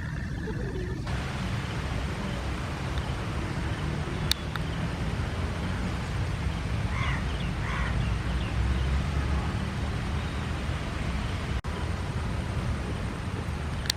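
Steady low outdoor rumble, with a sharp click about four seconds in and a bird calling twice about seven seconds in.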